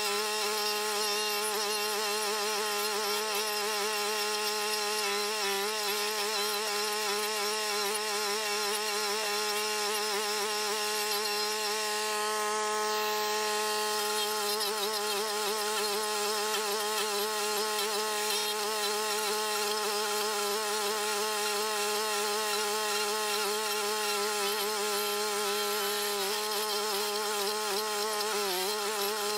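Toro walk-behind stump grinder running steadily with an even-pitched engine drone as its small toothed cutter wheel grinds down a stump; the pitch dips briefly near the end.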